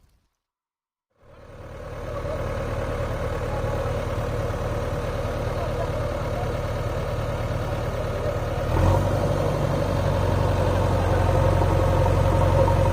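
JCB 3DX backhoe loader's diesel engine running steadily, fading in after a second of silence. About nine seconds in it gets louder and deeper.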